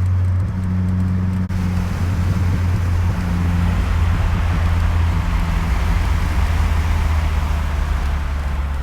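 Car engine droning at a steady low pitch with road noise while driving, heard from inside the cabin. There is a short dip about a second and a half in, and the road noise then builds.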